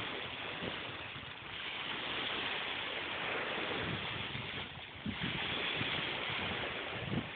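Small surf washing up on a sandy beach, with wind buffeting the microphone now and then, most noticeably about five seconds in and again near the end.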